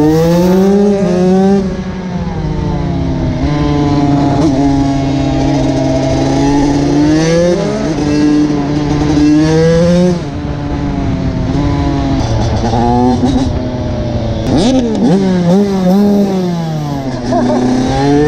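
Carbureted TM SMR 125 two-stroke supermoto engine under way through an aftermarket full exhaust, revving up through the gears with its pitch dropping back at each shift. The revs hold fairly steady for a few seconds mid-way, and near the end come a quick run of throttle blips as it shifts down and pulls again.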